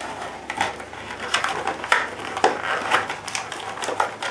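Stiff clear plastic blister packaging crinkling and crackling as it is handled, bent and pulled apart by hand, in a dense run of irregular crackles.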